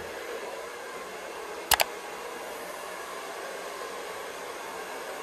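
Hand-held hair dryer blowing steadily while hair is styled with a round brush. Two sharp clicks in quick succession a little under two seconds in.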